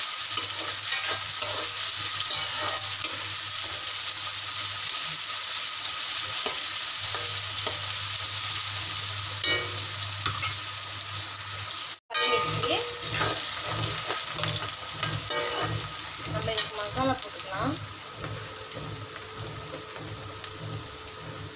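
Chopped onions, green chillies and curry leaves sizzling as they sauté in hot oil in a metal kadai, a metal spatula scraping and stirring them. The sound breaks off for an instant about halfway, then the sizzle grows gradually quieter.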